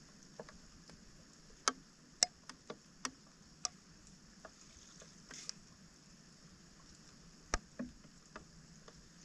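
Hands working in shallow water and debris at a clogged roadside drain: irregular small splashes and clicks, the loudest near the end, over a steady faint high hiss.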